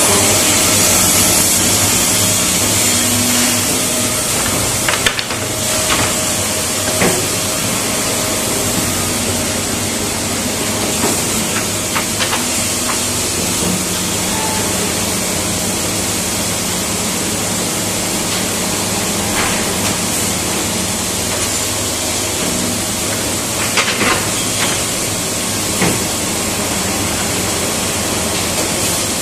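Liton MHZ1560AX600II automatic finger-joint machine line running: a steady machinery hum under a loud hiss, with a few short sharp knocks scattered through.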